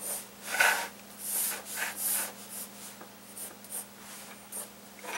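Graphite pencil drawing long straight lines on sketchbook paper: a run of scratchy strokes, the heaviest in the first two seconds or so, then lighter ones.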